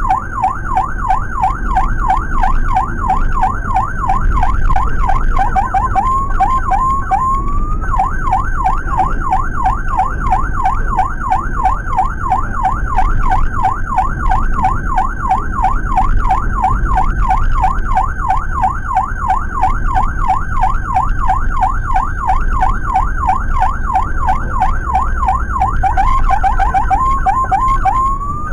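Electronic emergency siren sounding in a fast up-and-down yelp, heard from inside the cabin of a Suzuki APV ambulance with engine and road noise underneath. About six seconds in, and again near the end, it switches for a moment to short rising sweeps before going back to the fast yelp.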